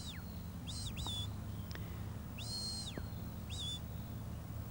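A sheepdog handler's whistle commands to a working dog driving sheep: a series of high, clear whistles. A long note ends with a slide down at the start, two short whistles come about a second in, another long note that drops away at its end comes in the middle, and a short warbled one follows near the end. A steady low hum runs underneath.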